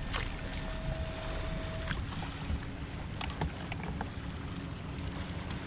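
Bass boat on the water: a steady low rumble of wind and water with a faint steady hum, broken by a few light clicks.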